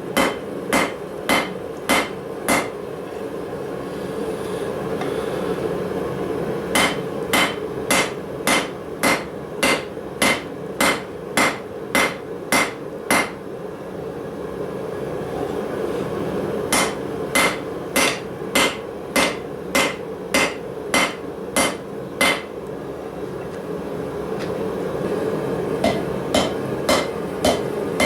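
Hand hammer striking hot steel on an anvil while forging blacksmith tongs, each blow ringing. The blows come in rounds of about two a second, with pauses of a few seconds between rounds. A steady background noise runs underneath.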